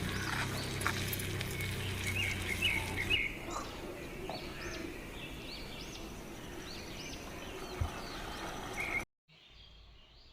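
Birds chirping again and again over steady outdoor background noise. The sound cuts out abruptly near the end, leaving a fainter background.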